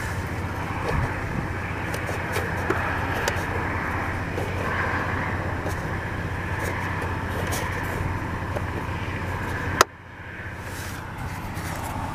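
Chevrolet Silverado 1500 pickup engine idling steadily, heard from inside the cab. Near the end there is one sharp click, and the sound drops to a quieter idle hum.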